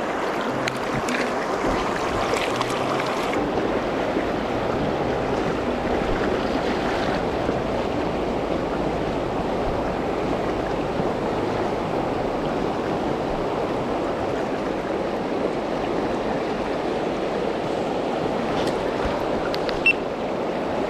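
Steady rush of a mountain river's current flowing around the wading angler, with one short sharp click near the end.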